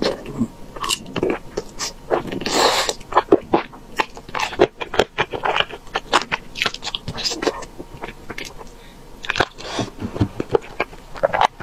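A person chewing and biting braised chicken wings and corn: a steady run of wet mouth clicks, smacks and crunches, with a longer breathy slurp about two and a half seconds in.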